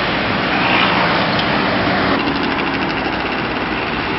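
Traffic on a busy multi-lane road: cars and a motorcycle passing, with the loudest vehicle going by about a second in.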